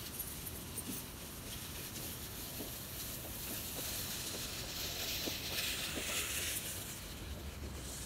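Outdoor ambience: a soft, even hiss that swells about halfway through and eases off near the end, with a few faint ticks.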